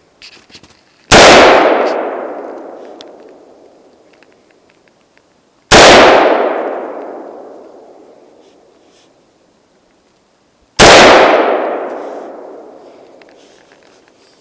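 Three single rifle shots from a Century Arms AR-15 built as an M16A1 clone, about five seconds apart. Each is very loud and rings out in a long echo that dies away over about three seconds.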